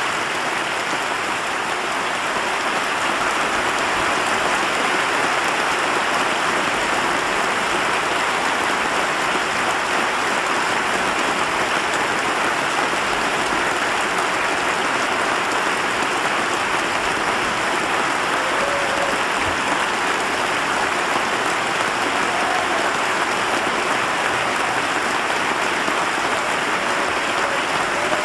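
Large crowd applauding in a long standing ovation, a dense, steady clapping that holds at one level throughout.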